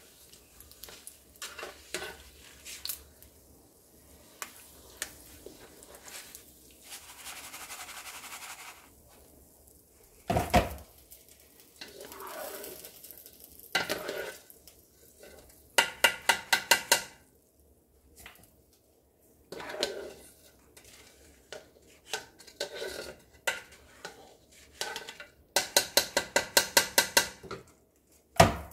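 Wire-mesh skimmer scraping and clinking against a metal frying pan while bits of batter are skimmed from the hot oil. Twice, about halfway through and again near the end, it is rapped on the pan in quick bursts of about seven taps a second.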